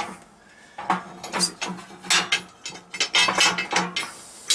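Heavy steel parts clinking and scraping against each other as a half of a Yamaha XS650 crankshaft and a steel brake disc are handled and lifted off a hydraulic press bed. There is a knock at the start, then a quick run of clinks with a low ringing note under them.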